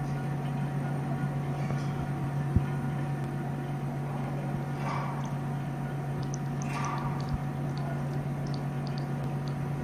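Closed tissue processor machine running with a steady low hum that switches on right at the start and holds even throughout, with a fainter higher tone above it.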